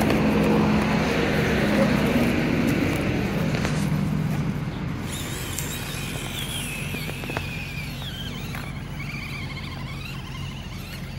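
A radio-controlled scale crawler's small electric motor and gears running as it drives over rock. It starts with a low hum that fades over the first few seconds, then a thin high whine that rises and falls with the throttle.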